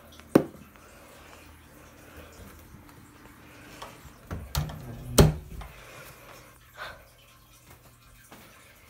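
A few knocks and bumps over a faint low hum: a sharp click about a third of a second in, two louder thumps around the middle, the second the loudest, and a smaller knock later.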